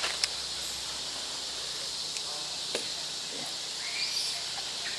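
Steady high-pitched drone of forest insects, with a few faint clicks.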